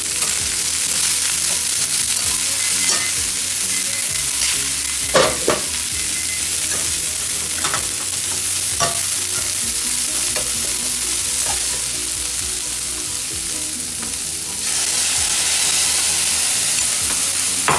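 Broccoli sizzling in a hot stainless steel pan of oil, stirred with a metal spoon that clicks and scrapes against the pan now and then. The sizzle gets louder about three-quarters of the way through.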